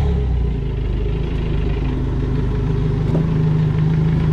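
Yamaha 200 four-stroke outboard motor idling steadily just after starting, its note shifting slightly about three seconds in. It has fresh oil and new spark plugs and is running smoothly.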